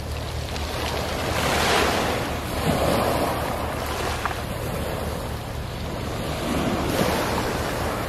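Small waves washing up and drawing back over a beach of small round black pebbles, the water hissing and the pebbles rolling and rattling in the wash. The surge swells about two seconds in and again near the end, over a steady low rumble.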